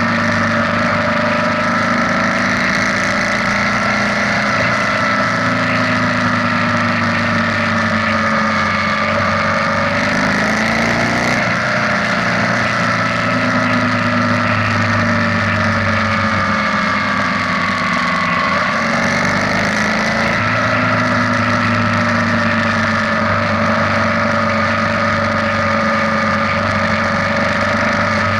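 BMW R nineT's air-cooled boxer twin engine running steadily at road speed, its pitch sagging and picking up again a couple of times with the throttle, over a steady rush of wind and road noise.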